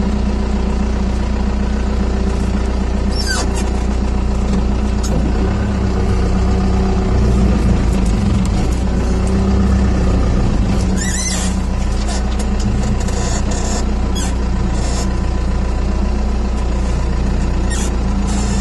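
4BT Cummins four-cylinder turbo-diesel running steadily as the pickup crawls along an off-road trail, heard from inside the cab and louder for a few seconds midway. A few brief high squeaks or scrapes break through, the most prominent about eleven seconds in.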